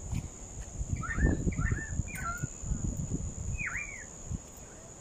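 A bird gives four short chirping calls that swoop down and back up in pitch: three in quick succession, then one more a couple of seconds later. They sound over a steady high insect trill, with low rumbling noise underneath that is loudest around the first calls and stops shortly before the end.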